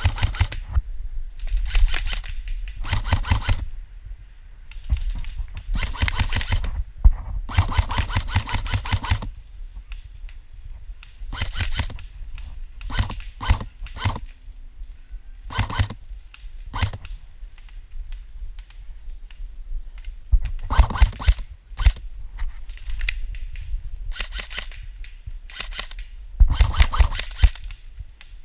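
Airsoft guns firing short and longer bursts of rapid clicking shots, again and again with gaps between them.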